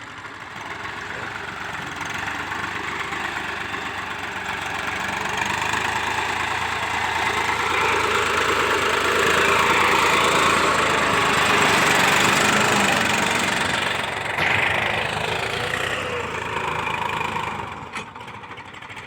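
Indo Farm 2035 tractor's diesel engine working hard, growing louder over the first ten seconds as the tractor pulls to get itself unstuck. It eases off about fourteen seconds in and drops away near the end.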